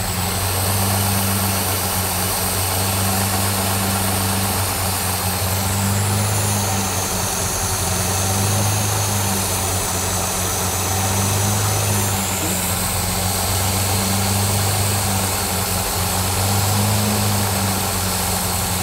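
Lamborghini LM002's V12 engine idling steadily with an even hum. Its carburettor screw has just been set spot on, and it is idling smoothly.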